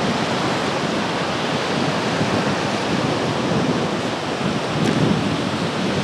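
Small sea waves breaking and washing up on a sandy beach in a steady rush, with wind on the microphone.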